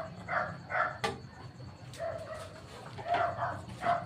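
A dog barking in short bursts, a pair early on and several more near the end, with a single sharp click about a second in.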